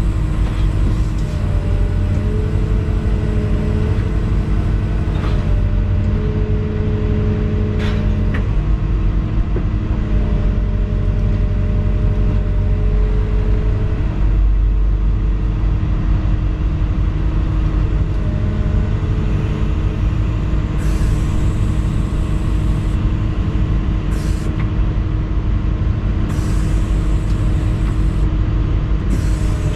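Volvo EC220E excavator's diesel engine running steadily under load, heard from inside the cab, with a hydraulic whine that comes and goes as the boom and paving grab are worked. There are a few sharp clicks and a couple of short hisses in the second half.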